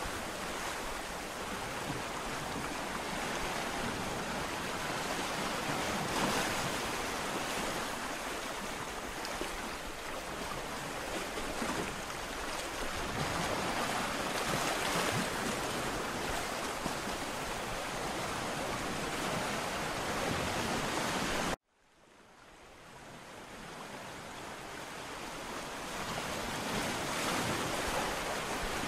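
Ocean surf breaking on a beach: a steady rush of waves that swells and eases every several seconds. About 21 seconds in the sound cuts out abruptly, then fades back in over a few seconds.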